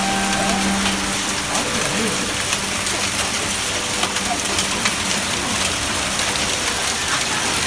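Hail coming down hard: a dense steady hiss of hailstones striking the pavement and parked cars, full of small sharp clicks.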